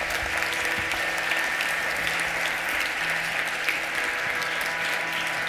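Audience applauding: steady, dense clapping from a large crowd in a hall, with a few faint held tones underneath.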